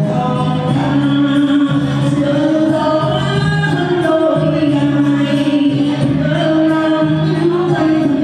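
Singing with musical accompaniment, the voices holding long notes.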